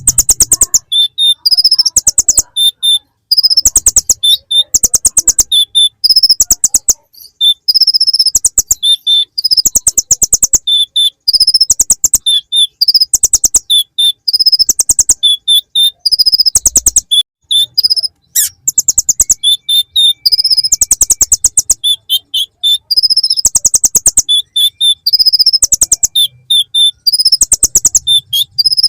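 Kolibri ninja (konin) sunbird singing a song packed with imitated ciblek (bar-winged prinia) phrases: fast dry rattling trills alternating with high, thin chirps, repeated phrase after phrase.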